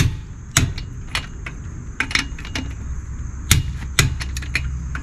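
Sharp metallic clicks and clinks, about a dozen at irregular spacing, from a torque wrench and socket working the lug nuts on a heavy RV front wheel as they are tightened to 150 foot-pounds.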